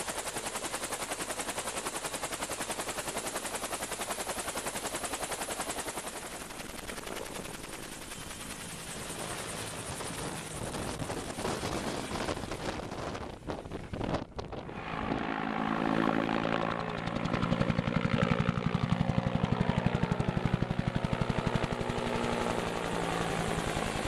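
Two-bladed helicopter rotor chopping in a fast, even beat at close range as the helicopter lifts off and flies away. The sound breaks off briefly about two-thirds of the way through, then comes back louder and fuller.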